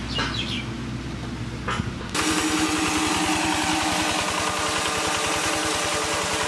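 Belt-driven maize crusher running: a steady hum with a few short chirps, then about two seconds in the sound cuts abruptly to louder, rapid low pulsing under a hiss as the machine runs up close.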